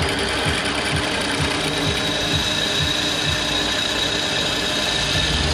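Drill press running, its twist bit boring a hole through a steel bar clamped in a vise, a steady machine hum with a thin high whine that grows stronger about two seconds in.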